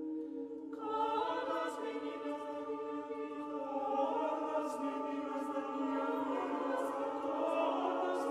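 Choir singing sustained, layered chords; about a second in, more voices enter with higher notes and the sound grows fuller.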